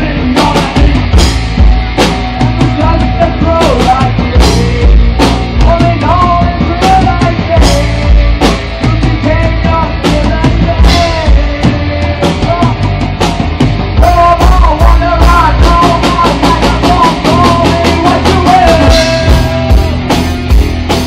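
Live rock band playing loud: electric guitars, bass and drum kit, with a male singer's vocal line over the top. About fourteen seconds in, the drumming gets busier, with cymbal hits coming thick and fast.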